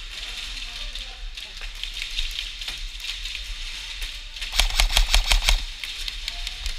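Airsoft gun firing a rapid burst of about a second, a little past the middle, over steady background noise.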